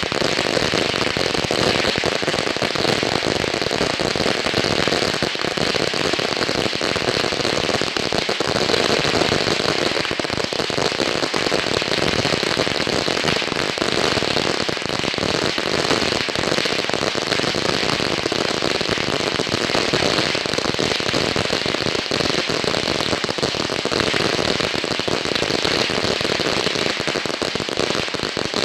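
A long strip of firecrackers going off nonstop, hundreds of small bangs a second merging into one continuous crackling rattle.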